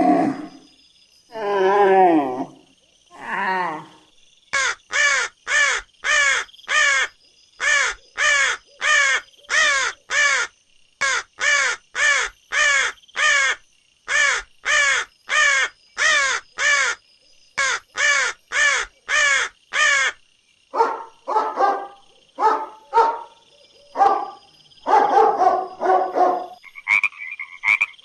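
Animal calling: a long, evenly spaced series of short calls, about two a second, then a few irregular, lower calls in the last several seconds.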